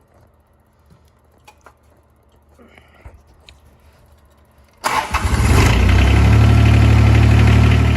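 John Deere 430 garden tractor's three-cylinder diesel engine cranking and starting about five seconds in, then running steadily. This is a test start after a throttle cable replacement. A few faint clicks come before it.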